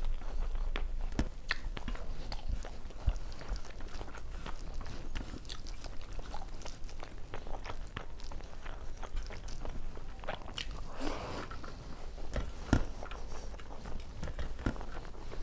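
Close-miked chewing of a person eating with her hand, with many small wet mouth clicks and smacks, mixed with soft sounds of fingers mixing rice and curry on a steel plate.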